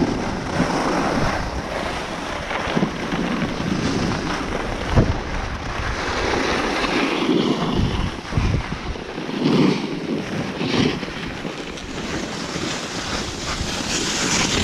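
Skis hissing and scraping over packed snow, swelling and easing with the turns, with wind buffeting the chest-mounted microphone. A couple of sharp knocks come about a third and halfway through.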